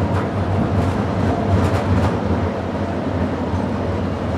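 Restored mid-1900s streetcar rolling along its rails, heard from inside the car as a steady low rumble, with a few light clicks about one and a half to two seconds in.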